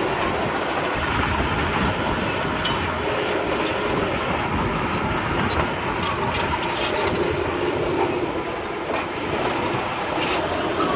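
Komatsu D31P crawler bulldozer's diesel engine running steadily, with scattered clanks and clicks from its tracks.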